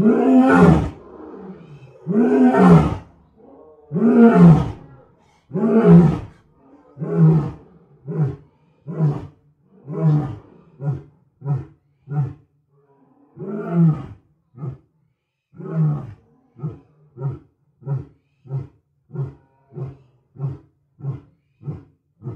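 Big-cat roar and snarl sound effects voicing saber-toothed tigers: several long, loud roars about two seconds apart, then shorter growls coming faster, about one and a half a second by the end.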